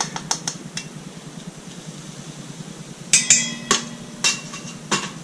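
A measuring spoon clinking against a stainless steel mixing bowl as baking powder is spooned in: a few light taps near the start, then a sharp strike a little past halfway that leaves the bowl briefly ringing, and a few lighter taps after it.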